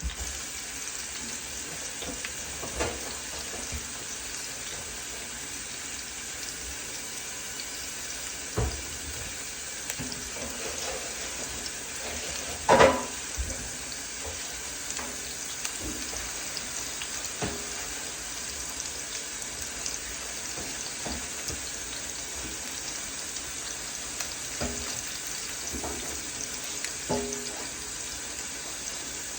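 Ribeye steak sizzling steadily in an oiled pan on medium-high heat, with a few scattered knocks and one loud clatter about 13 seconds in.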